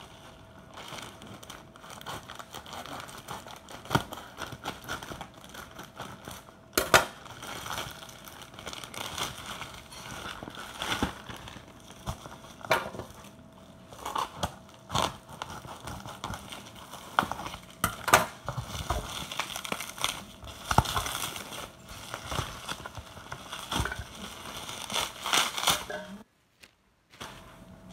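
Plastic mailer bag and bubble wrap crinkling and rustling as a parcel is cut open with scissors and the wrap is pulled off, with scattered sharp snips and clicks.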